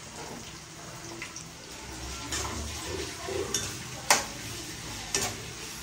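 Metal spatula stirring sliced onions in a kadai, with about four sharp clanks against the pan in the second half, over a steady hiss of the onions frying in oil.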